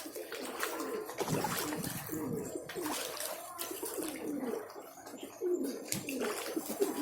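Pigeons cooing: repeated low, bending coos that overlap one another, with a few sharp clicks among them.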